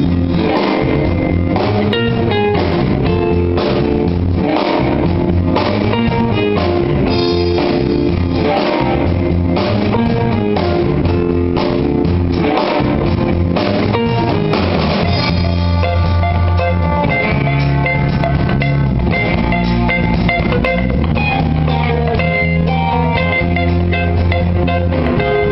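Live band rehearsing: electric guitars and a drum kit playing a steady groove together.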